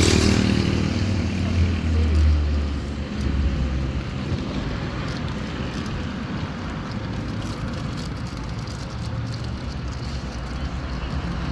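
Road traffic: a motor vehicle's engine rumbles loudly close by for the first few seconds, then eases into a steady hum of passing traffic.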